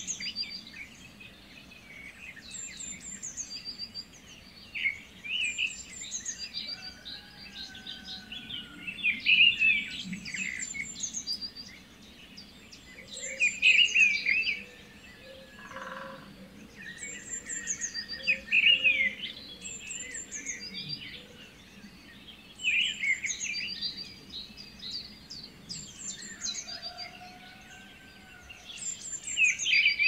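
Several birds singing together in a morning chorus: overlapping songs, with bursts of quick warbling every few seconds, high thin repeated notes, and now and then a lower drawn-out whistle.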